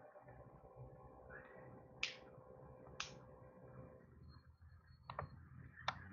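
Faint background hum that fades out about two-thirds of the way through, with four short sharp clicks, the first two about a second apart and the last two near the end.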